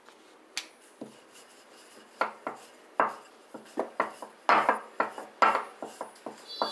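Wooden rolling pin rolling dough out paper-thin on a round rolling board, knocking and rubbing on the board in quick, irregular strokes. A few light knocks at first, then busier from about two seconds in, at roughly two or three strokes a second.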